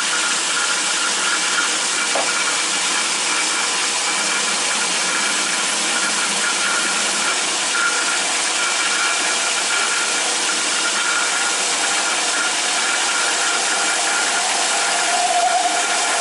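Atlas 10-inch metal lathe running while a starter drill bores into the end of a backhoe pin: a steady whirring with a faint whine. Near the end the drill starts to squeak, the sign that the cut is asking for oil.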